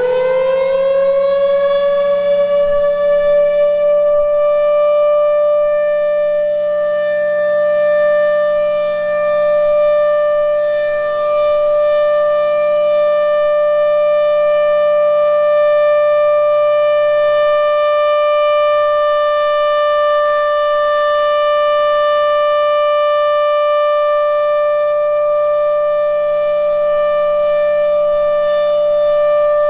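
Federal Signal Thunderbolt 1000 civil-defense siren finishing its wind-up in the first second or two, then holding a loud, steady high tone. Its loudness swells and dips only slightly.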